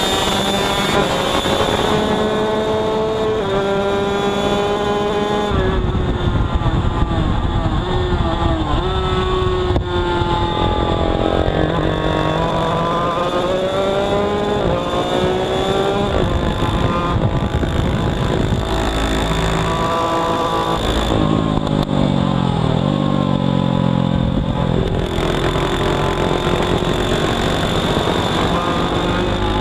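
Two-stroke racing motorcycle engine at race speed, heard onboard, its pitch climbing and falling as it runs up through the gears, slows for corners and drives out again, with wind rushing over the microphone. About twenty seconds in, a second bike's engine is heard crossing the first.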